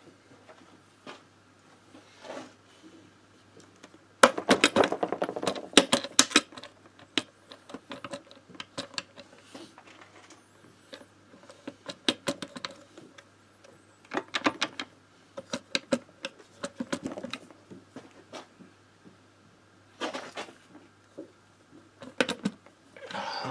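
Metal tools and engine parts being handled on a workbench: rapid runs of metallic clicking and clattering in several bursts, the loudest starting about four seconds in.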